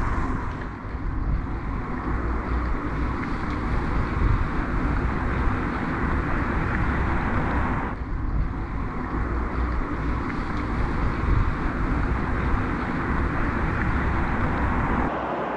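Wind buffeting the microphone over a steady rushing noise, with a sudden change in the sound about halfway through and again near the end.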